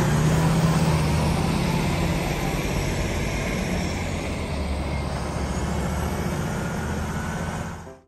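Heavy diesel tractor unit running steadily as it hauls a lowboy trailer loaded with a large tracked excavator, with a low engine hum under broad road noise that gets gradually a little quieter as the truck moves away.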